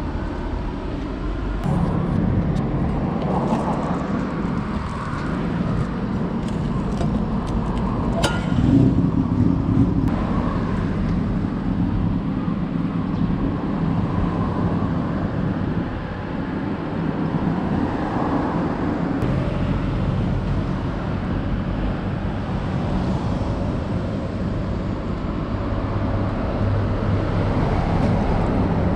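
Steady outdoor rumble of road traffic, with a few light clicks about eight seconds in.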